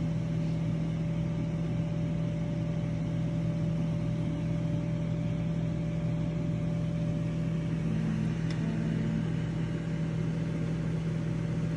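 Steady low hum of a running electric motor, constant in pitch and level, with a faint click about eight and a half seconds in.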